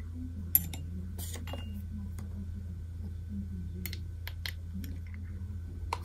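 Scattered light clicks and taps of small ink sample bottles and a paintbrush being handled and set down on a desk, over a steady low hum.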